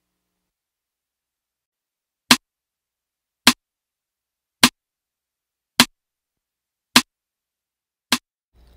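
Six sharp clicks, evenly spaced a little over a second apart, with dead silence before and between them.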